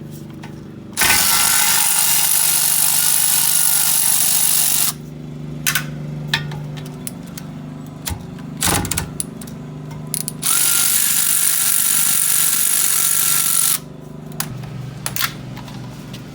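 Impact wrench run in two bursts of about four and three seconds, spinning out the two 14 mm brake caliper bolts, with a few clicks and a metallic knock in between.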